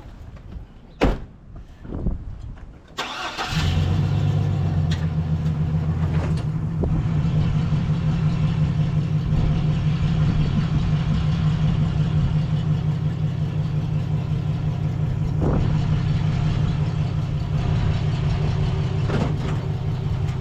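Two sharp knocks, then a vehicle engine starts about three seconds in and idles steadily.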